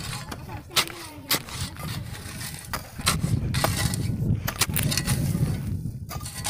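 Shovel and ketmon hoe digging dry, stony soil: irregular sharp strikes and scrapes of metal blades into the earth.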